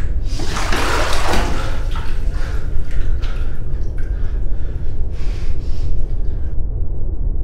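Water splashing and sloshing in a bathtub, busiest in the first few seconds and thinning out toward the end, over a steady low rumble.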